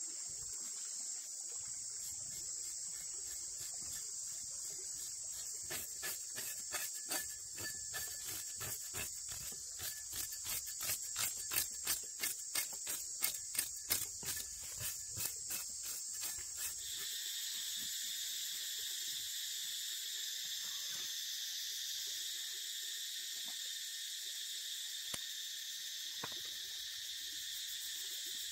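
A knife scraping the scales off a water snake's skin against a bamboo log. It goes in quick strokes, about three a second, that get louder in the middle and stop about two-thirds of the way through. Under it runs a steady, high-pitched chorus of insects.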